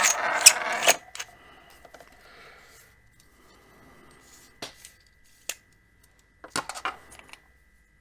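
Hands rummaging through small hard parts and packaging: a burst of rustling and clattering in the first second, then a few light clicks and taps, with a short cluster of them near the end.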